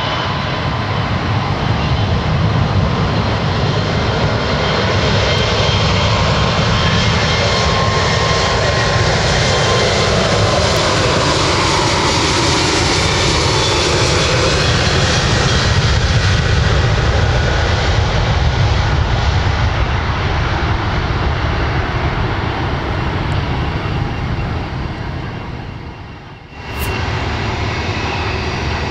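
Airbus A321neo's Pratt & Whitney PW1100G geared turbofans at takeoff power as the airliner rolls down the runway, a loud steady jet noise that swells toward the middle with a sweeping tone through it. The sound dips sharply for a moment a couple of seconds before the end, then resumes.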